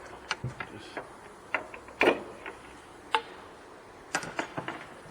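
Small pry bar popping plastic wiring-harness clips loose: a run of irregular sharp clicks and snaps, the loudest about two seconds in.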